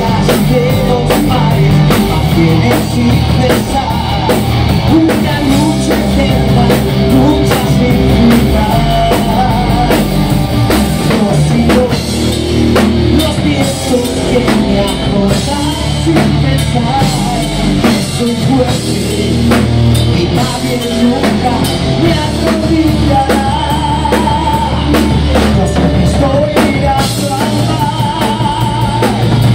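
Live rock band playing: electric guitars, bass guitar and drum kit, with a male lead singer.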